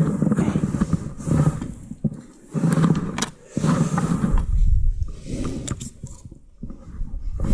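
Handling noise: jacket fabric rubbing against the microphone in rough low rumbling surges as the arms work close to it. A few sharp plastic clicks come about three seconds in and again near six seconds in, as the tip-up's spool and flag are handled and set.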